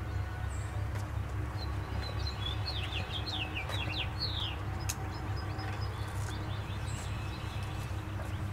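A small bird chirping a quick run of high, falling notes a couple of seconds in, over a steady low rumble.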